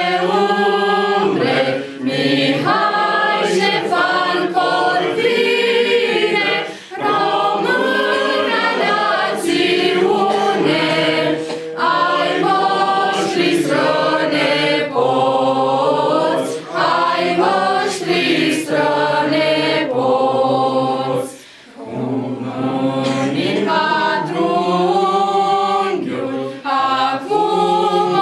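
A small choir of young women singing unaccompanied, in long sustained phrases with brief breaks for breath, the longest break about three-quarters of the way through.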